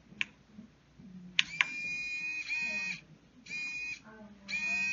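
A small 360-degree continuous-rotation servo motor whirring in spurts, about a second and a half and then shorter half-second runs. Sharp clicks or claps come just before the first run, the kind of loud noise that sets it going.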